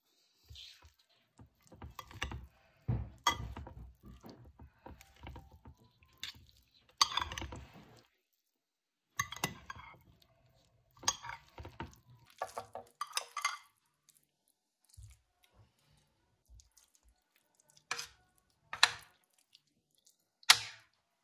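Metal spoon stirring a thick mayonnaise salad in a cut-glass bowl: soft wet mixing sounds with irregular scrapes and clinks of the spoon against the glass. Near the end come a few separate sharp clicks as the spoon knocks against a serving plate.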